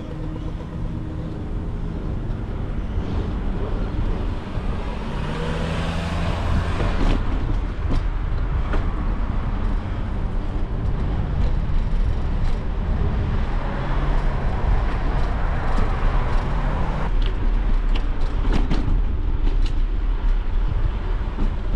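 Wind rushing over the microphone of a bicycle-mounted camera, with tyre and road noise and passing traffic swelling and fading twice. Scattered sharp clicks or rattles are mixed in.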